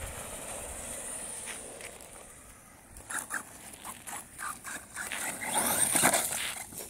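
HSP Wolverine RC truggy with a brushless motor running across pavement and gravel, its motor whining up and down in pitch. About six seconds in it revs hardest and tumbles, the loudest moment, as one of its soft tyres blows off the rim.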